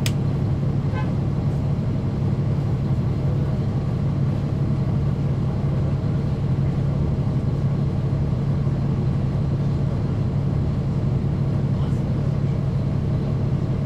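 Caterpillar C13 ACERT diesel engine of a 2009 NABI 40-foot transit bus, heard from inside the bus, running with a steady low drone that neither rises nor falls. A sharp click comes right at the start.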